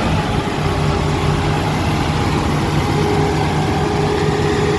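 Turbocharged Holden VL Commodore engine idling steadily.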